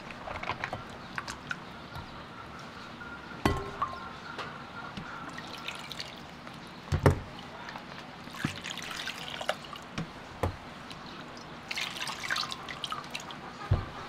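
Water splashing and dripping in a glass bowl as peeled onions are rinsed by hand and lifted out, with a few short knocks, the loudest about halfway through.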